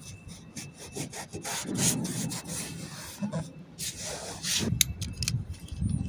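Irregular rubbing and scraping strokes as vinyl letter tape is rubbed down by hand, with a few longer swipes and some short ticks near the end.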